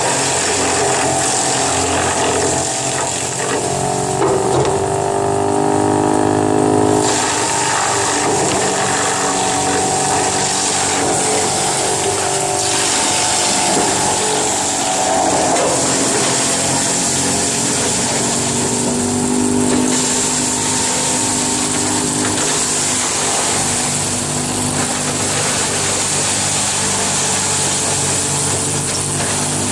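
Wood chipper machine running, a steady engine drone under a dense grinding rush that swells and eases several times.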